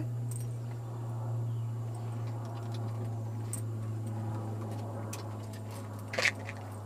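A steady low hum with scattered light ticks, and a brief scuffing thump about six seconds in as a small Pomeranian jumps down from the car seat onto the pavement.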